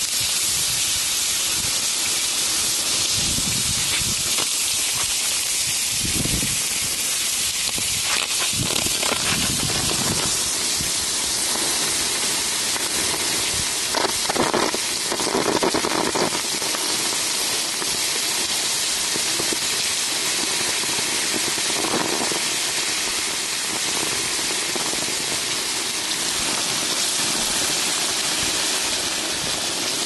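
Water hissing into steam on a hot, freshly poured bar in its mould as a garden hose sprays it to quench it. The hiss is steady, with a couple of louder surges about halfway through.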